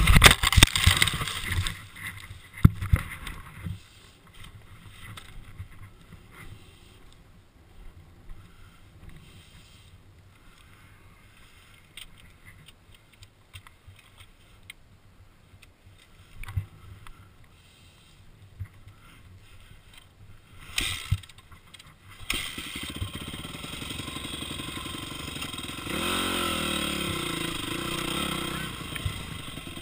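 Dirt bike crash: the revving engine cuts out with several hard knocks and clatters in the first three seconds, then a long quiet stretch with only scattered small knocks. About 22 seconds in a motorcycle engine sound comes in suddenly and runs steadily, getting louder about 26 seconds in.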